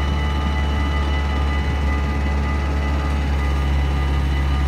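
A heavy vehicle's engine running steadily: a deep, even rumble with a thin, steady whine above it.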